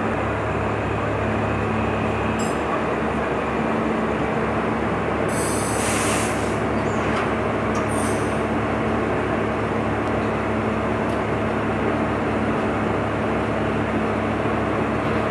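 Diesel engine of an overhead-equipment inspection car running with a steady hum. Two short high-pitched bursts come in about five and a half seconds and eight seconds in.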